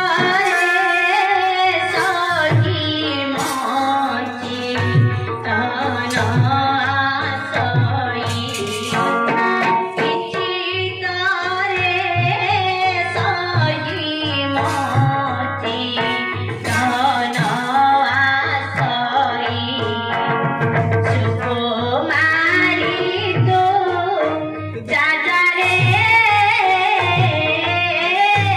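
Bharatalila folk-theatre song sung live through a microphone and loudspeakers, the singer's melody carried over a hand drum beating a steady rhythm.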